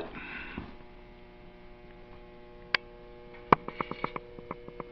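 Steady electrical mains hum, with a few faint clicks and ticks, the sharpest about three and a half seconds in.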